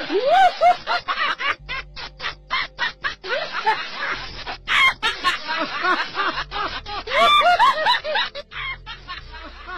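People laughing loudly and exclaiming, with a quick run of short laughs, about five a second, starting about a second and a half in. A faint low beat or hum comes and goes underneath.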